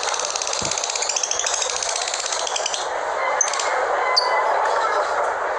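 Small birds calling: a fast, high trill for about three seconds, then a few short high chirps, over a steady background hiss.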